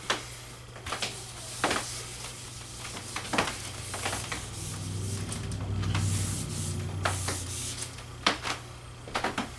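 Whiteboard eraser wiping across the board in strokes, a soft rubbing hiss, with scattered clicks and knocks. A low hum rises under it in the middle and fades out.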